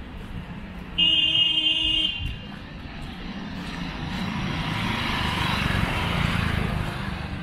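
A vehicle horn sounds once for about a second, then a passing vehicle's engine and tyre noise swells and fades away in street traffic.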